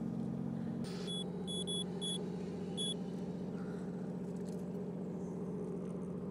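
Boat engine droning steadily, with a string of five short, high electronic beeps between about one and three seconds in.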